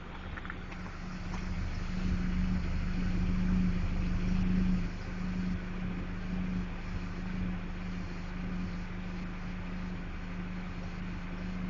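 1999 Ford Ranger's 2.5-litre four-cylinder engine running at idle, heard at the tailpipe as a steady exhaust hum. It is a little louder for the first few seconds, then settles, running smoothly.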